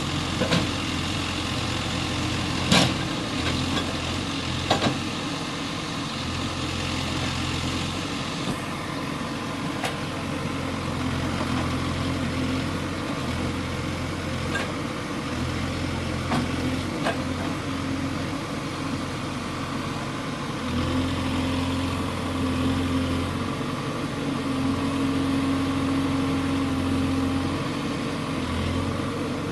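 Heavy diesel engine running steadily, with the note swelling now and then, and a few sharp knocks in the first seconds.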